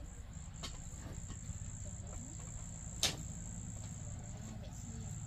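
Crickets chirping in a continuous high trill over a low steady rumble, with one sharp knock about three seconds in.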